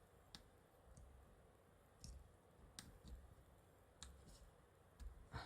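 Faint, scattered small clicks and taps, about seven in five seconds, two of them close together near the end: tools and flex-cable connectors being handled and pressed into place on the Sony Xperia 1 V's internals during reassembly.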